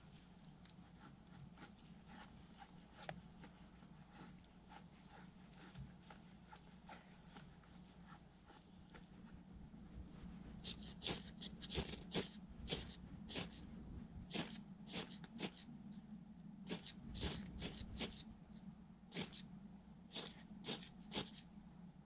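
Ferro rod struck against its striker to throw sparks onto tinder and light a small stick stove: some twenty sharp rasping strikes in quick clusters, starting about halfway in.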